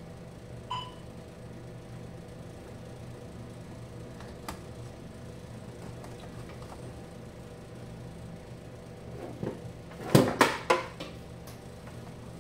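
A short electronic beep from the Zimmer ATS 2000 tourniquet unit about a second in, over a steady low hum. Near the end come several loud clicks and knocks as the unit's casing is handled.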